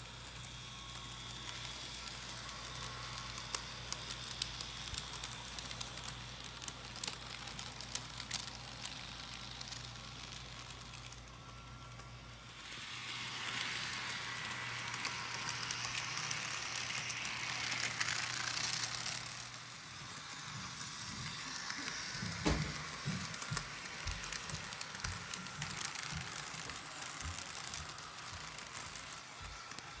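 HO-scale model train running on sectional track: a low steady hum from the motor and power pack under fine clicking and rattling from the wheels and rail joints. The hum fades out partway through, and a few soft knocks come in the last third.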